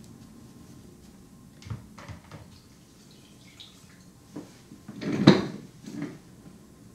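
A few light knocks and clatters of objects being handled, with one louder, half-second clatter about five seconds in.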